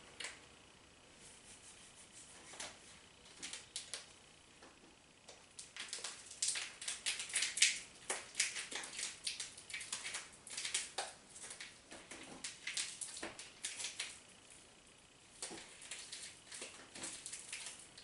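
Small plastic bag of glitter crinkling and crackling in the fingers as it is worked at to get it open: a faint run of small crackles and clicks, thickest in the middle stretch.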